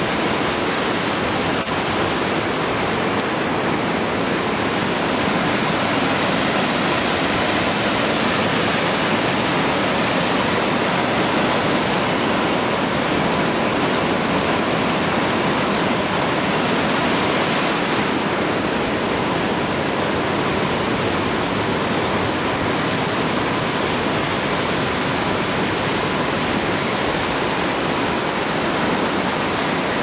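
Several converging waterfall cascades spilling over rock, a steady, loud rush of falling water.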